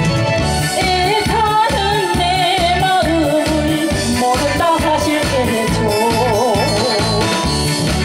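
A woman singing live into a handheld microphone over a recorded backing track with a steady bass beat, her melody held with a wide vibrato. She is singing through a cold that has weakened her voice.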